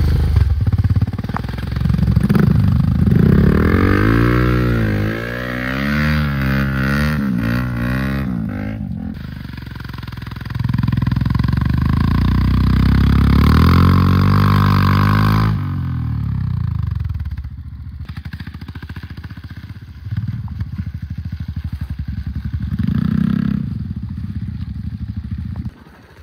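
Motorcycle engine labouring along a muddy trail, its revs rising and falling again and again, with two long louder stretches in the first half. The engine then runs quieter, and the level drops suddenly near the end.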